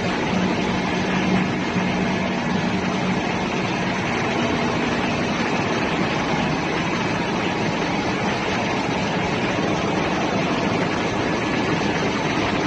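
Steady, loud din of a ship's engine room machinery, a dense even roar with a low hum that fades out about four seconds in.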